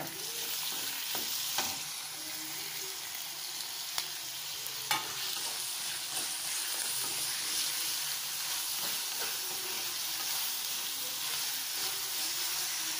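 Chopped tomato and crushed garlic frying with onions in hot oil in a clay pot, a steady sizzle as they are stirred with a spatula, with a few sharp taps about one and a half, four and five seconds in.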